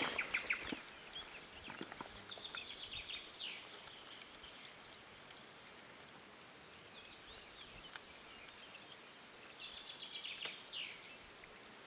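A songbird singing twice, each time a short phrase of rapid high notes ending in a downward slide, over quiet outdoor ambience with a few faint clicks.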